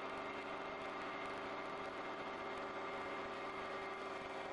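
CNC wood-turning lathe running steadily, its rotary cutter head cutting a wooden baseball bat blank. The sound is an even machine whine with a constant pitch over the rushing noise of the cut.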